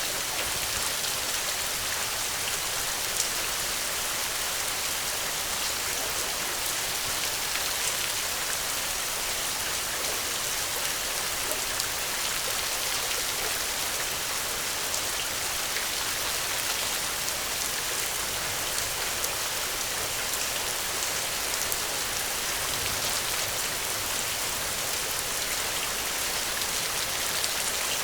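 Steady rainfall: an even hiss of rain with scattered individual drops pattering on a surface.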